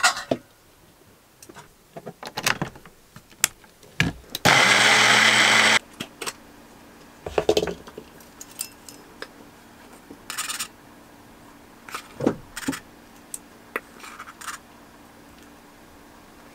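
A small personal blender runs in one short burst of just over a second, about four seconds in, pureeing cooked pumpkin. Scattered clicks and knocks of utensils and containers come before and after it, with light taps of measuring spoons as dry ingredients go into a pot.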